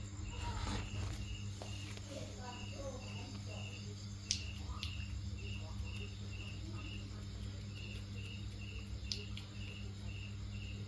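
A cricket chirping in a steady rhythm, about two short chirps a second with a couple of brief pauses, over a constant low hum. A few sharp clicks are heard around the middle and again near the end.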